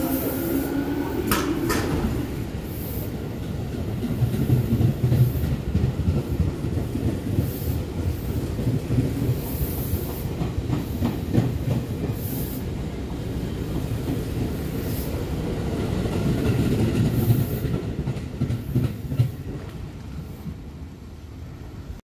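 Tobu 10030 series electric commuter train pulling out slowly. A brief whine at the start dies away, then the wheels clack and knock over the rail joints over a steady low rumble, fading near the end as the train moves off.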